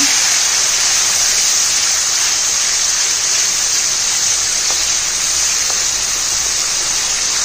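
Ground onion paste frying in hot oil in a kadhai: a loud, steady sizzling hiss as it is stirred with a wooden spatula.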